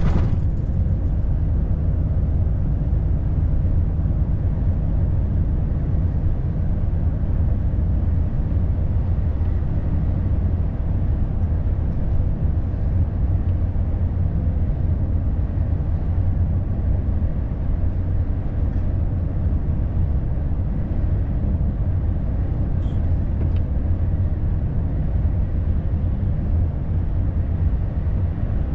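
Inside a Volvo FH truck cab at highway speed: the diesel engine and tyres make a steady, loud low drone and rumble.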